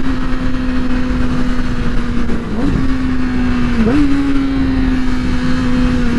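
2008 Yamaha R6's inline-four engine running at speed and slowly losing revs as the bike slows, its note dipping and jumping up twice in quick downshifts.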